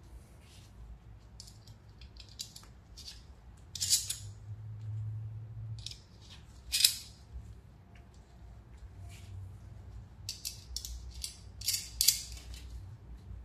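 Irregular metallic clicks and short scrapes of parts and hand tools being handled while fitting a mini bike's split sprocket, over a low steady hum.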